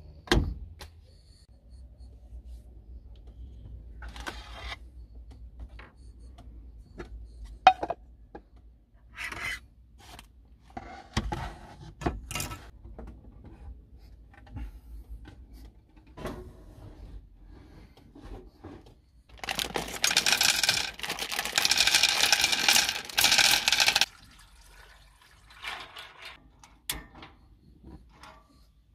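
Kitchen items being handled in a small van kitchen: scattered clicks, knocks and clatter, with a loud noisy burst about twenty seconds in that lasts some four seconds.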